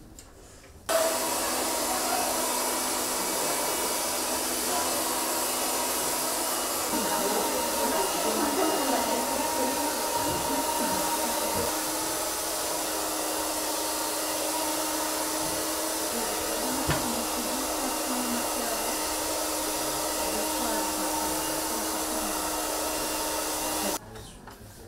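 Hair dryer running steadily, a loud rush of air over a steady hum, which starts suddenly about a second in and cuts off suddenly near the end.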